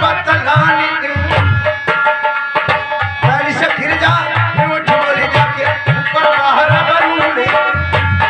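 Indian folk music: a dholak hand drum playing a quick, steady rhythm with deep strokes that bend up in pitch, under a held melody from an accompanying instrument.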